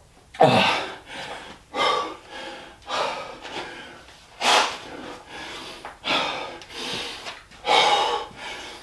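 A man breathing hard after a set of burpees, with heavy, gasping breaths about once a second. The loudest is a voiced exhale with falling pitch just after the start.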